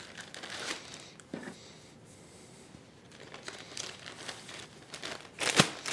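Plastic sandwich bag crinkling in the hands as dough balls are tossed in the sugar inside it, in irregular bursts that grow louder near the end.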